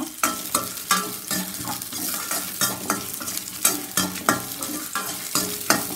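Steel ladle stirring and knocking against a stainless steel kadai, two or three scrapes and taps a second, over the light sizzle of shallots, garlic and dried red chillies frying in a little oil.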